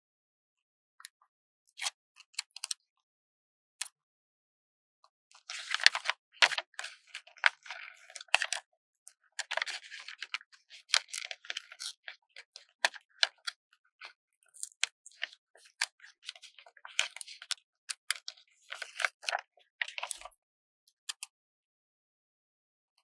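Stickers being slowly peeled from their backing sheet: a crackly paper rustle full of small sharp ticks. It comes in three stretches of a few seconds each, with scattered single clicks between them.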